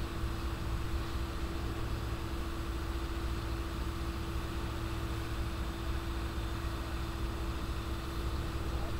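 Steady low rumble of idling engines with a constant hum above it, heard from inside a car.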